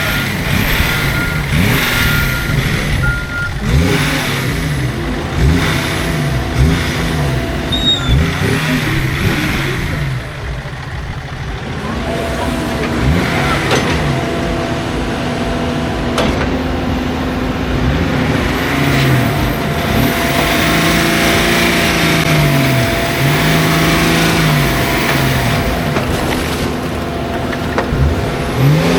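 Off-road 4x4 engine revving up and falling back again and again, in repeated surges. A row of short beeps sounds in the first few seconds.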